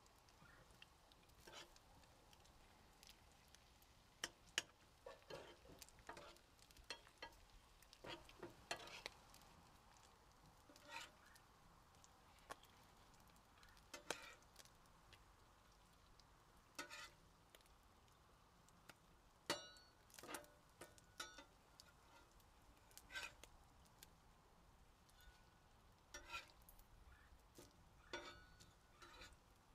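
Bacon frying on a Blackstone steel griddle: a low, quiet sizzle broken by scattered sharp pops and clicks, and a steel spatula scraping and tapping the griddle as it lifts the strips near the end.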